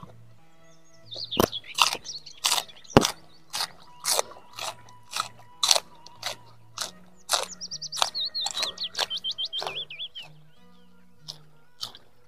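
Crisp crunching and chewing of raw vegetables, a quick irregular series of bites starting about a second in and thinning out near the end, over soft background music.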